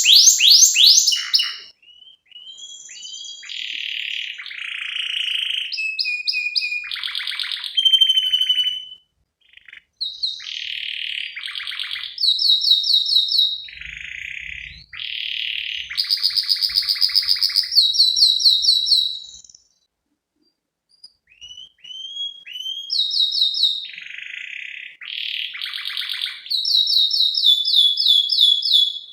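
Domestic canary singing a varied, energetic song of fast trills, rapid repeated notes and short rising and falling whistles. Phrases are separated by brief pauses, about nine seconds in and again near twenty seconds.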